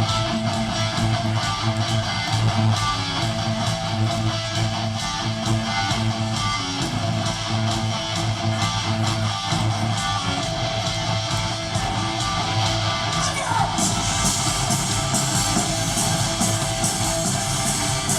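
Live hardcore punk band playing, with electric guitar, bass and drums driving a steady beat. The cymbals wash in much louder about three-quarters of the way through.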